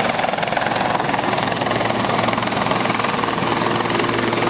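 Helicopter flying low past, its rotor giving a steady, fast chop.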